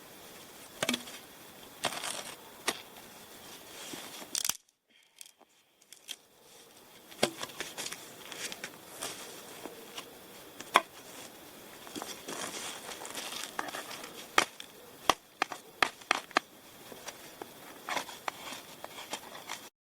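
Irregular short, sharp scrapes and crackles of a Morakniv Bushcraft Survival knife's 90-degree spine struck down a ferro rod to throw sparks into dry tinder, with the tinder crinkling and crackling. There is a brief near-silent gap about five seconds in.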